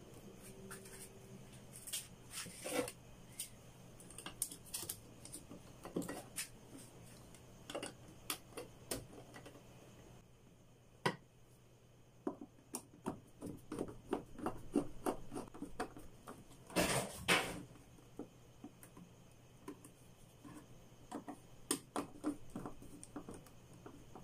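A three-gang light switch and its plastic cover plate being closed up onto a utility box: irregular clicks, taps and scrapes of plastic and metal with a screwdriver, with a louder clatter about two-thirds of the way through.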